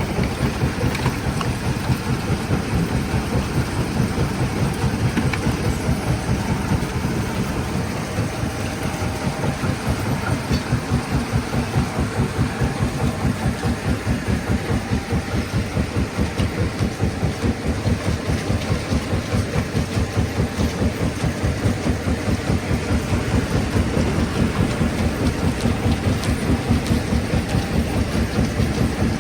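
Stone-crushing plant machinery running steadily, with a heavy low rhythmic pulsing of about two to three beats a second over a rattling, grinding din.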